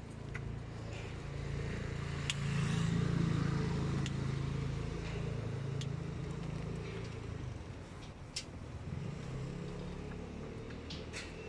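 A low vehicle hum that swells over the first few seconds and fades away by about seven seconds in, with a few light clicks scattered through it.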